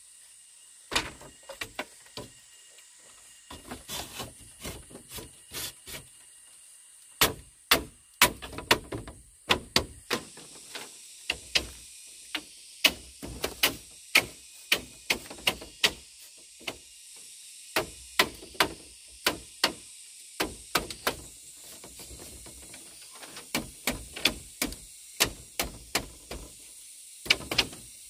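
Irregular run of sharp knocks and taps, one or two a second with short pauses, over a faint steady hiss.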